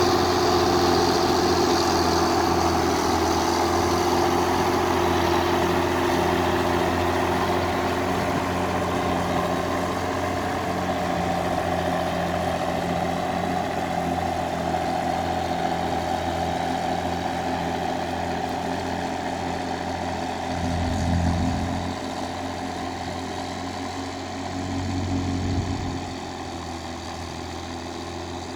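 Case 1694 tractor's diesel engine running steadily while pulling a plough, slowly fading, with the low hum swelling briefly twice near the end.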